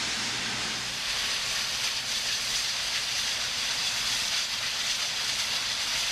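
Union Pacific Big Boy 4014, a 4-8-8-4 articulated steam locomotive, hissing steam steadily while it stands with steam up.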